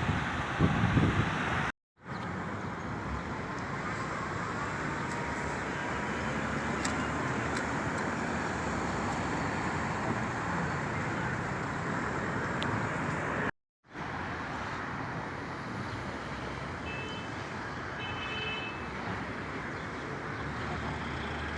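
Steady outdoor road traffic noise, an even hiss and rumble, with a few low bumps in the first second and a half. It drops out completely for a moment twice, about two seconds in and again about fourteen seconds in.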